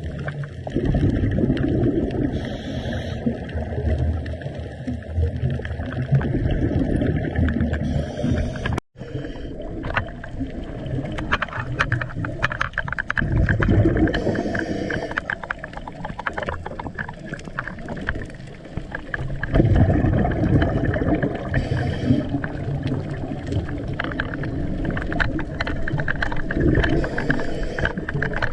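Underwater recording of a scuba diver breathing through a regulator: a short hiss on each inhale about every six seconds, then a rumbling gurgle of exhaust bubbles, with small crackles throughout. The sound cuts out completely for a moment about nine seconds in.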